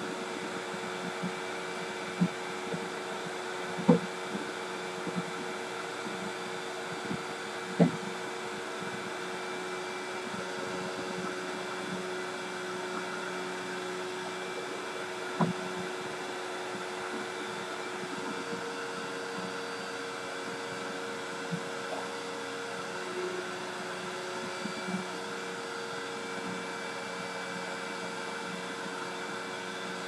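Vacuum cleaner running steadily, a constant hum with a few sharp knocks, the loudest about 4 and 8 seconds in.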